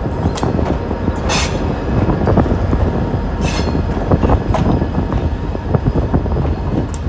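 Diesel-electric locomotive rumbling as it rolls along the track, with a few brief high-pitched wheel squeals.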